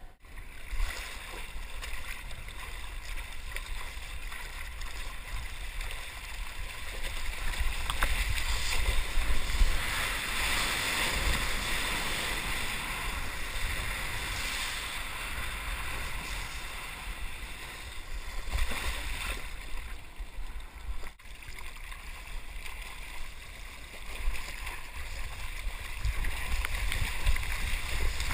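Water rushing and splashing around a 6'8" Liddle M3P hull surfboard as it planes along a small wave, heard close up from the board, with a steady low rumble of water and wind on the microphone. The rush comes up about a second in.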